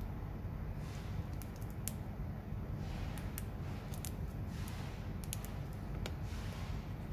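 Thin plastic protective film on a new smartphone crinkling and crackling as fingers peel and handle it, in scattered irregular clicks over a steady low background rumble.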